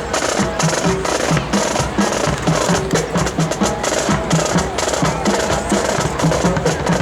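Marching band drumline playing a fast, steady percussion cadence: rapid snare strokes and rolls over repeated low pitched drum hits.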